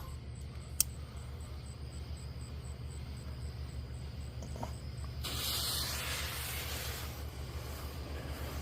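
Spongeboy firework fountain by Miracle catching about five seconds in and spraying sparks with a steady hiss. A single sharp click comes near the start.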